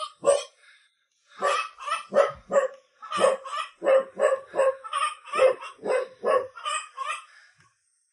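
A dog barking over and over, about two or three barks a second, after a pause of about a second near the start.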